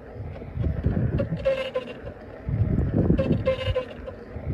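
Kingsong KS-S18 electric unicycle being ridden, its tyre rubbing against the tight inner mudguard casing: a squealing rub that comes back about every two seconds over the rumble of the rolling wheel. The rub comes from the rear suspension shock compressing under the rider's weight and deforming the inner casing onto the tyre, which the owner puts down to the shock being set too tight on a pre-production unit.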